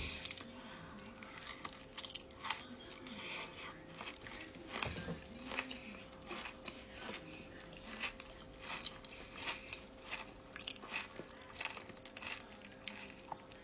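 A person bites and chews a crunchy mouthful of chocolate Easter egg filled with pistachio kunafa, making many irregular crunches that come close to the microphone.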